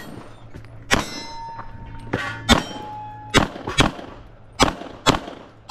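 About seven pistol shots at uneven spacing, several answered by the clang of steel targets ringing on after the hit.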